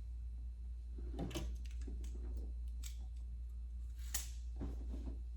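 Hands handling hair and a curling wand: scattered soft rustles and a few light clicks over a steady low hum.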